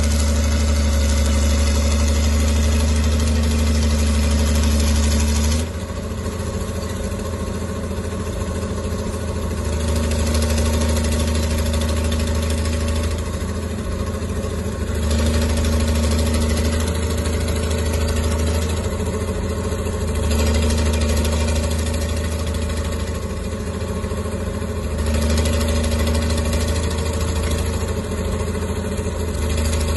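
Crawler dozer engines running slowly: a steady deep drone that swells louder and eases back every few seconds.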